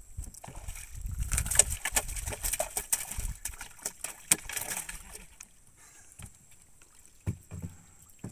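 Water splashing and sloshing around a small wooden boat, with a run of knocks and clatter on the hull, busiest in the first half, as a caught fish is brought to the boat and landed. Two more sharp knocks near the end.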